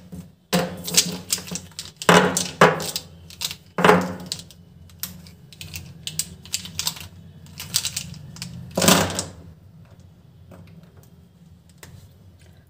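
Plastic felt-tip marker pens clicking and knocking against each other and the table as they are handled and set down. A cluster of sharp clicks in the first four seconds, then scattered lighter ticks and one more knock about nine seconds in.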